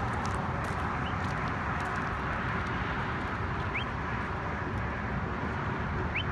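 Steady rumble of highway traffic, with three or four short, faint rising chirps over it.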